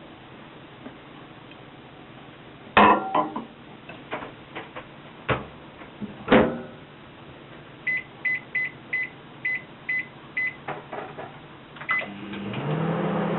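Microwave oven being operated: a few clunks from the door, then a string of short keypad beeps as the cooking time is entered, and about a second from the end the oven starts running with a steady hum.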